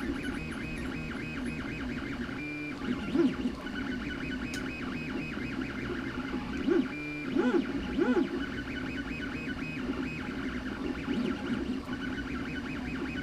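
3D printer's stepper motors whining in musical tones that keep changing pitch as the print head moves. The tones switch over to a single steady tone twice, and there are a few soft knocks along the way.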